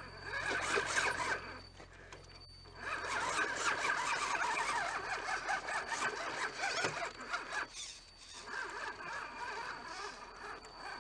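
Radio-controlled scale crawler truck's electric motor and geared drivetrain whining in bursts of throttle as it climbs a rock ledge: a short burst at the start, a long one from about three seconds in, and another from about eight seconds.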